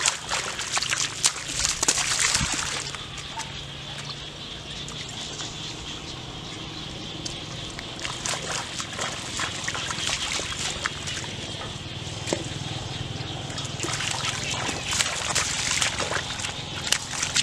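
Bare feet and hands splashing and sloshing through shallow muddy floodwater, in quick bursts of splashing at the start and again near the end, with quieter wading in between.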